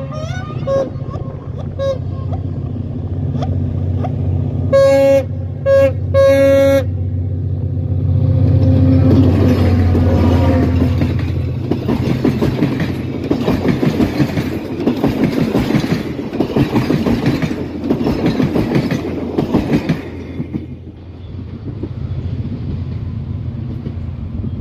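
A passenger train passing close by. The locomotive sounds three short horn blasts about five seconds in, its engine grows loud as it goes by, then the coaches' wheels clatter in a steady rhythm and fade after about twenty seconds.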